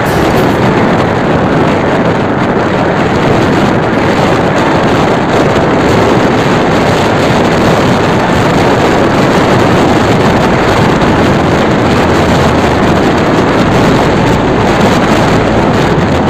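Loud, steady rushing noise with no clear pitch, starting and cutting off abruptly.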